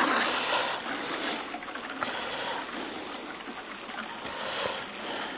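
Water pouring steadily from a 12-litre watering can, a little louder at first.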